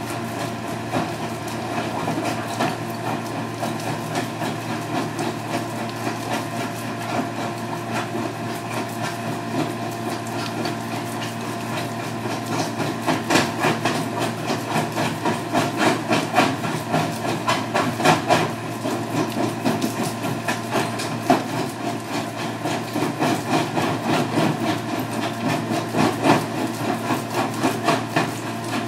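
Red Rhino mini jaw crusher running steadily under its diesel engine while its jaws crack rock and masonry, with irregular sharp knocks and stone rattles that grow louder and busier about halfway through.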